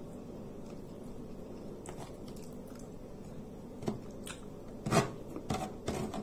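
A person chewing a mouthful of nasi tiwul and spicy tuna close to the microphone, with small wet mouth clicks and a few louder smacks or crunches about five seconds in.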